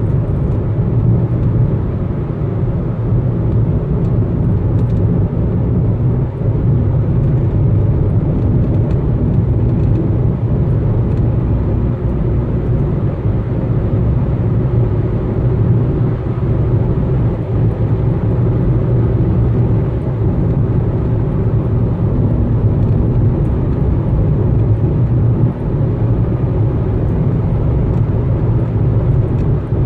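Steady low road and engine rumble heard inside a moving car.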